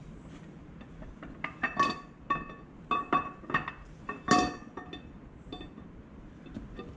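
Steel camshaft of a Cummins 24-valve 5.9 clinking against the cam bearings and block as it is slid back into its bore. There is a run of about eight ringing metal clinks from about a second and a half in to about four and a half seconds in, the loudest near the end of the run.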